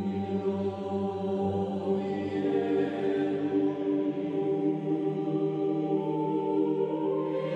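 Slow background music of long, sustained held chords, with a new note entering about six seconds in.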